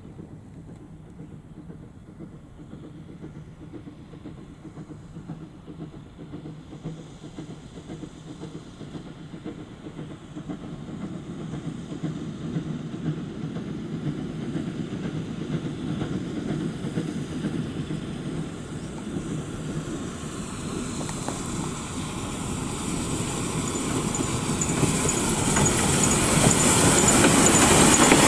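Steam locomotive NM25 approaching with its train, its running noise growing steadily louder. Over the last few seconds, as it draws close, the clatter and hiss of the engine and wheels on the rails rise sharply.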